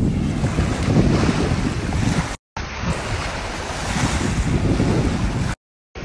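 Wind buffeting a phone's microphone by the sea, a rough rumbling hiss with the wash of surf in it. The sound cuts out to silence twice for a moment.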